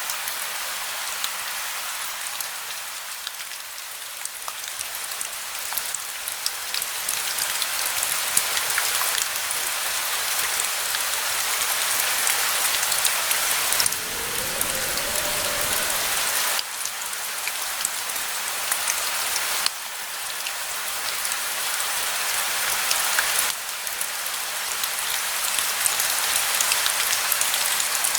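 Steady rain falling, a dense patter of individual drops over a constant hiss. About halfway through there is a brief low rumble.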